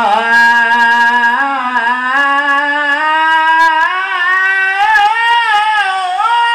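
A man singing sholawat (Islamic devotional chant) into a microphone: one long unbroken melismatic phrase on a held vowel. The pitch climbs by steps, with quick wavering turns in the middle, then settles on a higher steady note near the end.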